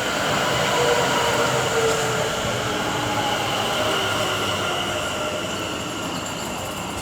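Two coupled Class 730 Aventra electric multiple units running into the platform and slowing, with faint whining tones that drift down in pitch as the sound gradually fades.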